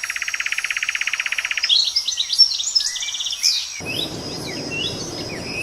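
Several songbirds singing. A fast, even trill runs for about the first second and a half, followed by varied short chirps and sweeping whistles, over a faint steady high-pitched hum. A low rushing background noise starts suddenly about four seconds in.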